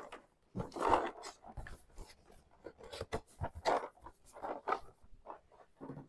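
Board game components and packaging being handled: a run of short, irregular rustles, crinkles and light knocks.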